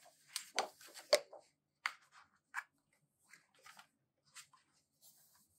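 Hands handling a glossy cardboard Blu-ray box set and its fold-out card panels: crisp rustles, slides and light taps of card, bunched in the first second or so, then scattered and lighter, with a soft brushing slide near the end.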